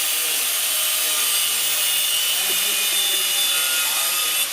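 Steady, loud, high-pitched hiss of metal being cut under a truck, with no letup, and faint voices behind it.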